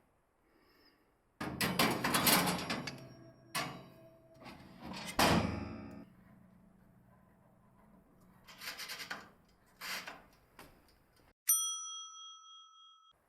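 Scraping and knocking handling sounds, then, with all other sound gone, a single bright metallic ding that rings out for nearly two seconds.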